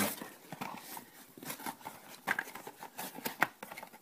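Light, scattered clicks and rustles of cardboard packaging being handled as an item is lifted out of a box.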